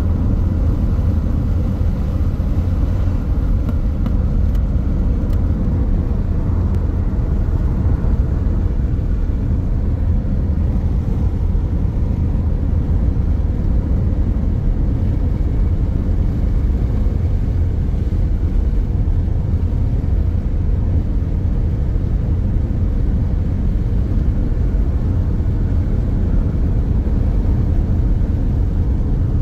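Car driving at a steady pace: a constant low rumble of engine and road noise.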